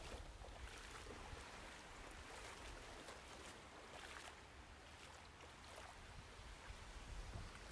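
Faint running-water sound effect: a steady wash of a trickling stream with small splashes.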